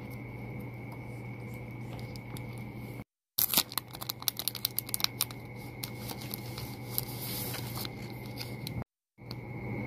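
Clear plastic sticker film crackling and crinkling as it is handled and peeled from its sheet: a quick run of sharp crackles that thins into a softer rustle, over a steady background hum with a faint high whine.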